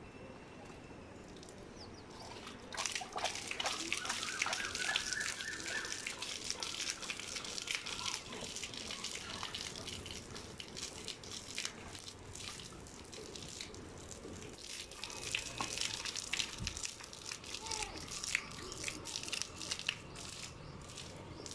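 Cow-dung water flung by hand onto a dirt road, spattering on the ground in quick, repeated splashes that start about three seconds in and keep going.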